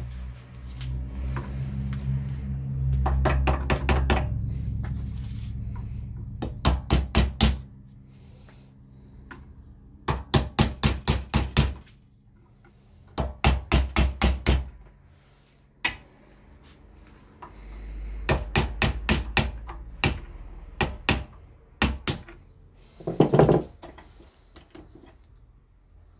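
Bursts of rapid sharp knocks, about six a second, on a rust-seized WWII German bayonet and its scabbard as the blade is worked loose, with a low rumble under some of the bursts and a single louder knock near the end.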